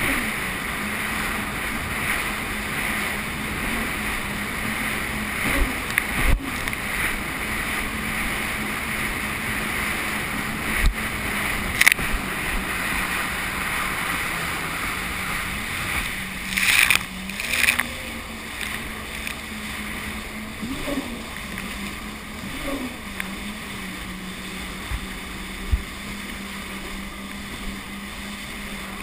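Jet ski engine running at a steady pitch over wind and water noise. The hull slaps or splashes a few times, and the engine note wavers briefly in the second half.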